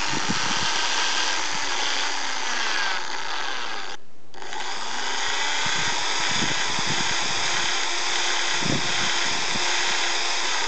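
Electric drill running steadily, spinning an intake or exhaust valve against its seat in a scooter's cylinder head to lap it in, reseating valves that were leaking compression. The drill sound cuts out briefly about four seconds in.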